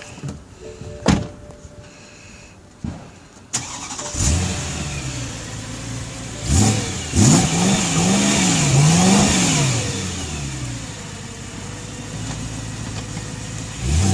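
Car engine starting about four seconds in, after a few clicks. It is revved up and down several times, then settles to a steady idle.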